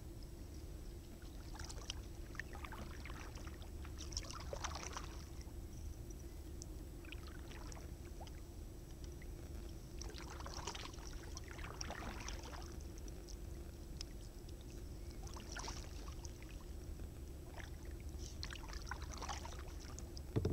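Kayak paddle strokes in calm water among floating ice: a splash and drip every two to three seconds, over a steady low hum.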